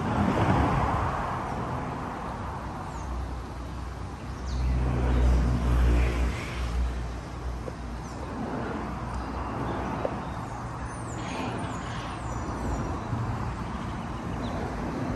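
Outdoor street ambience in which a motor vehicle's engine passes, loudest about five seconds in. A few short high chirps come later.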